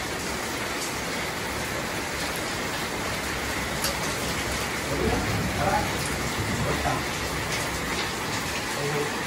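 Steady hiss of heavy rain falling, with a few light clicks.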